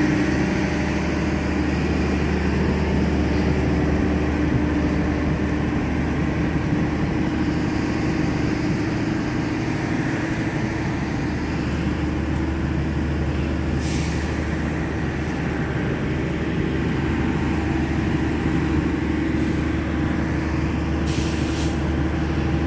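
The diesel generator set of a passenger train's generator car running with a steady drone. Short hisses of air come about two-thirds of the way through and again near the end.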